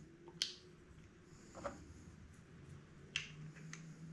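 Faint small clicks and light taps, three of them plainer than the rest, as a collared router bit is handled and fitted by hand into a 3D-printed tool-setter holder.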